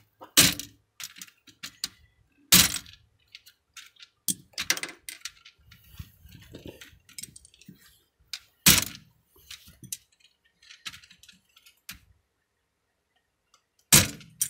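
Plastic keycaps being ripped off an old Logitech internet keyboard by hand: a handful of loud, sharp snaps a few seconds apart as caps pop off their stems, with quieter plastic clicks between them.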